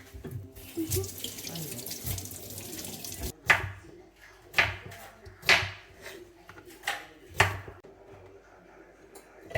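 A kitchen tap running for about three seconds, then shut off suddenly. Four sharp knocks follow over the next four seconds.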